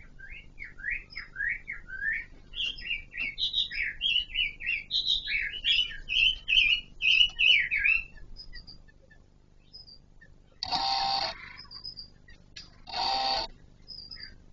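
Kon Ka Kinh laughingthrush calling: a run of quick whistled notes, rising and falling, about three a second, for roughly eight seconds. Then come two short harsh rasping bursts about two seconds apart.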